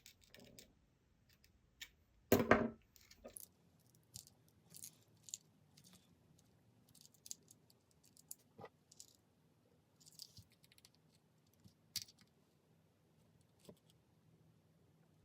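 Scattered small clicks, taps and scrapes of hands and a tool working on the small metal-and-plastic body of an iPod nano, pressing at its parts, with one louder knock about two seconds in.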